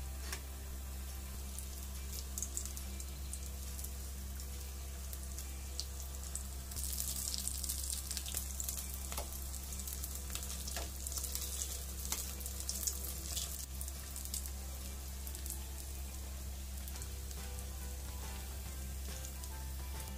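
Samosas deep-frying in hot oil: a steady sizzle with scattered crackles and pops, growing louder for several seconds in the middle.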